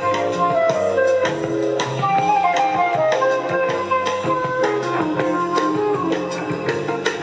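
Guitar music with drums played back through a 1929 Victor amplifier with type 245 triode output tubes and a Victor BA-40 loudspeaker, heard in the room; the sound is thin in the deep bass.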